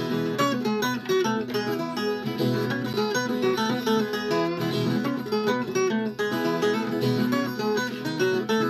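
Viola caipira playing an instrumental passage: a quick run of plucked notes over sustained lower strings, with no singing.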